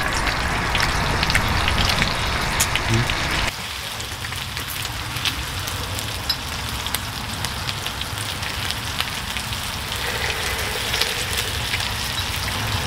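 Thin-sliced pork belly sizzling and spitting in a shallow grill pan, a steady crackling hiss; the level drops a little about three seconds in.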